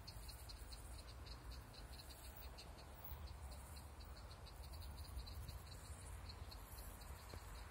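Insects chirping in a fast even pulse, about five to six chirps a second, over a faint low rumble.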